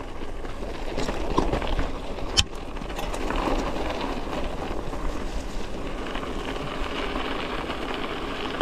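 Narrow cross-country mountain-bike tyres rolling over pea gravel, a steady crunching hiss, with one sharp knock from the bike about two and a half seconds in.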